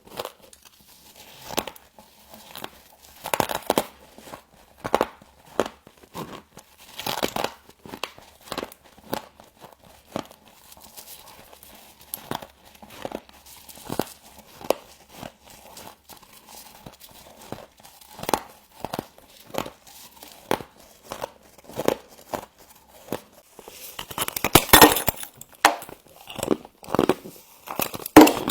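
Frost being bitten and crunched close to the microphone: irregular crisp crunches, with a denser, louder run near the end.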